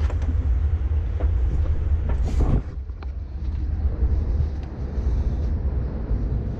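Steady low rumble with a few light metallic clicks and one short scrape about two and a half seconds in: a pry bar working at the edge of an engine's timing cover.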